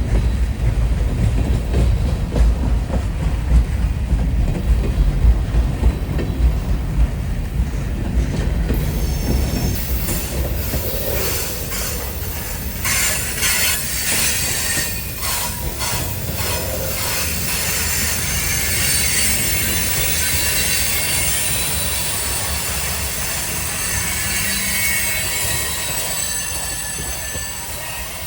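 Heavy freight train's cars rolling through a tight curve on a grade: a deep rumble and clatter at first, then high-pitched squealing of wheel flanges against the curved rail from about ten seconds in.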